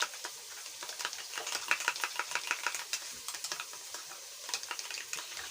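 Onions and chopped tomatoes sizzling in hot oil in a sufuria as they are stirred, with quick irregular scraping clicks of the spoon against the pot.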